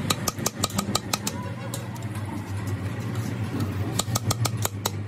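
Hammer tapping on the steel pressure plate of a Fiat 480 tractor clutch at its fingers: a quick run of sharp metal strikes in the first second and another about four seconds in. A steady low hum runs underneath.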